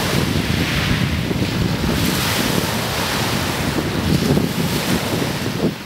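Wind buffeting the microphone over choppy lake water, with waves splashing and lapping: a steady, noisy rush with a low fluttering rumble.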